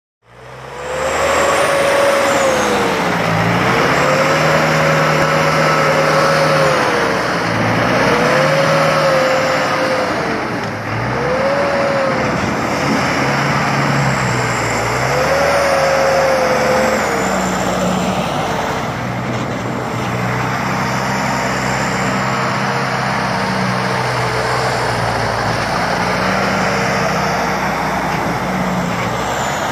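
Farmtrac tractor's diesel engine revving up, holding at high revs and dropping back again and again for the first half, then running at a steadier, slightly lower speed with small changes in pitch.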